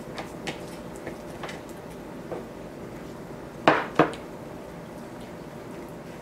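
Dishware clinking while hands season a raw steak on a ceramic platter: a few faint scattered taps, then two sharp clinks about a third of a second apart a little over three and a half seconds in, as a hand dips into a small glass bowl of seasoning.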